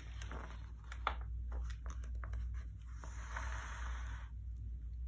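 Paper pages of a picture book being turned and handled: crinkling and flicking with small ticks and taps, then a longer swishing rustle about three seconds in. A steady low hum runs underneath.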